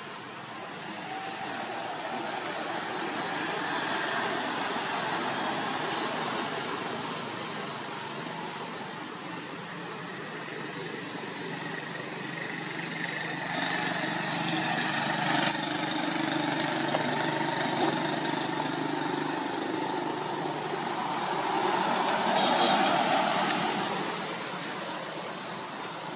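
Road traffic going by: motor vehicles passing in slow swells of noise, the loudest near the end, over a thin steady high tone.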